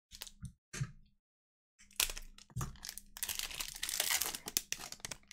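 Wrapper of a football trading-card pack being torn open and crinkled by hand: a few short rustles, then, after a brief pause, steady crinkling from about two seconds in.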